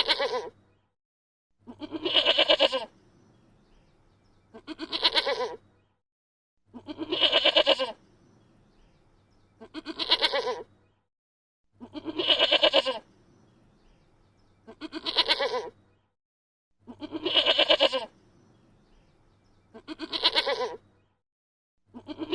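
A goat bleating over and over, about nine calls evenly spaced roughly every two and a half seconds, longer and shorter calls taking turns, with short quiet gaps between them.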